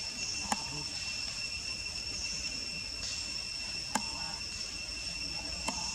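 Steady, high-pitched insect drone holding two pitches, with three sharp clicks: about half a second in, about four seconds in, and near the end.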